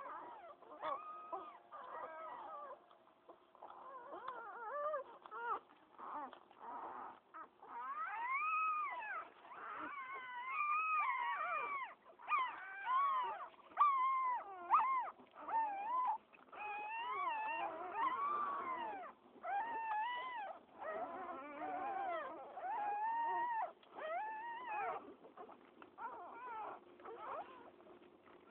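Newborn pit bull puppies crying: many short, high squeals that rise and fall in pitch, often several at once, with brief gaps between them.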